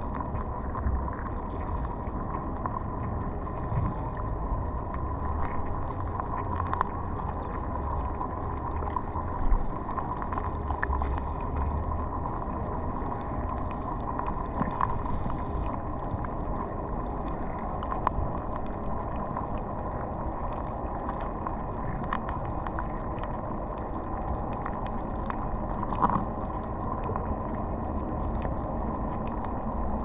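Underwater ambience picked up by a GoPro in its housing: a steady wash of water noise with a low rumble and scattered faint clicks.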